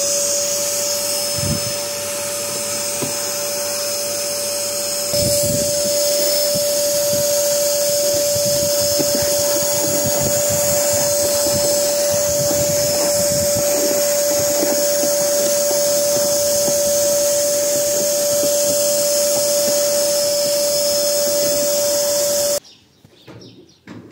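Vacuum cleaner running with a steady high whine as its hose nozzle is worked over a car's seats and floor, louder from about five seconds in, then switched off near the end.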